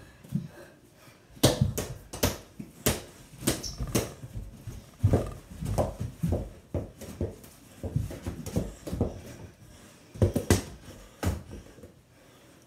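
A mini basketball bouncing on the floor as it is dribbled, in irregular thuds about one or two a second, mixed with the footsteps and bumps of two players jostling.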